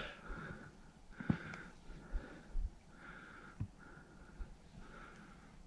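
A person breathing close to the microphone: short, even nasal breaths about once a second, with a couple of faint knocks.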